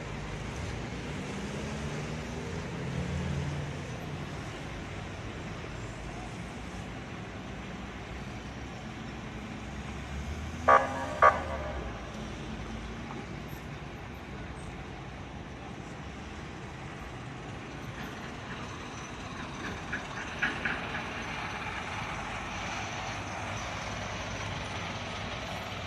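Street traffic running steadily, with a vehicle engine changing pitch in the first few seconds and two short, loud car horn honks about eleven seconds in. A few fainter short sounds come about twenty seconds in, and a heavy truck passes near the end.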